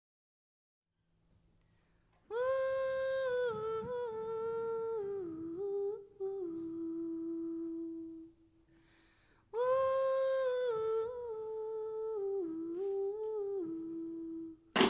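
A woman humming a slow wordless melody unaccompanied in two phrases, each starting on a held note and stepping down to a lower sustained one, with a short pause between them. A sudden loud hit comes right at the end.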